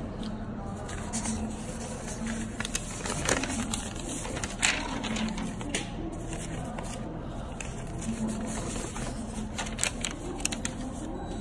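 Sheets of paper rustling and crinkling as they are handled right at the microphone, with scattered sharper crackles, the loudest about three and five seconds in.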